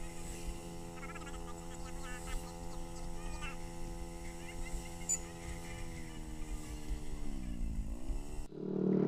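Motor scooter engine running at a steady pitch, the note dropping away about seven seconds in and then climbing again, before the sound cuts off suddenly near the end.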